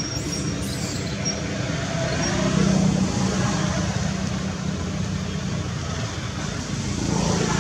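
Steady low hum of a running motor-vehicle engine, swelling slightly about three seconds in.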